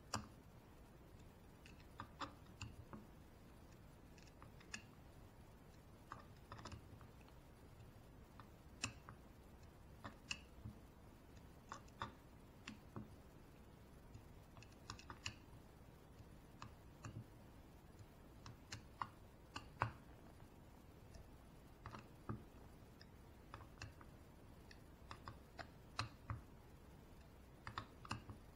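Faint, irregular clicks and ticks of a small screwdriver working tiny 2 mm screws into a block-off plate on a model nitro engine's metal case, as the screws are run in and snugged down one after another. The clicks come singly and in short clusters.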